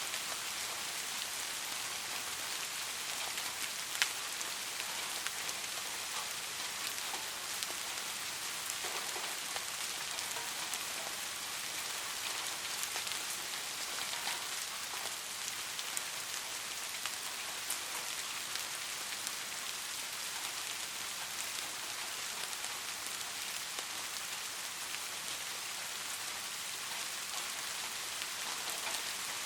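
Steady rainfall: an even hiss of rain with many small drop ticks pattering on surfaces, one sharper drop tick about four seconds in.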